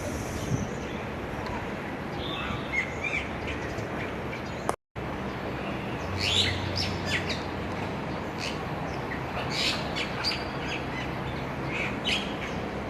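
Bali myna calling: a string of short, sharp chattering and whistled notes over steady background noise. The sound cuts out briefly about five seconds in, and the calls come thicker after that.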